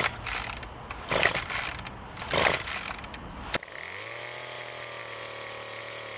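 Recoil starter of a Craftsman 25cc two-stroke cultivator pulled a few times with a rasping zip. The engine catches about three and a half seconds in, its pitch rising briefly before it settles into a steady idle.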